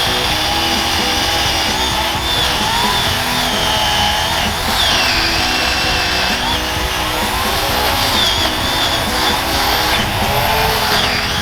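Craftsman 18" electric chainsaw cutting into a pine trunk, running continuously with a whine that wavers and dips in pitch as the chain bites into the wood.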